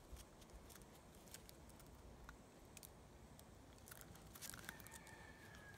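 Near silence, with faint scattered small clicks and a brief cluster of them about four and a half seconds in.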